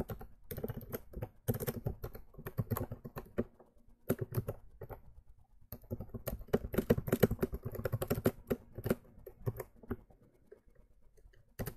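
Typing on a computer keyboard: quick runs of keystrokes broken by short pauses, then a single keystroke near the end.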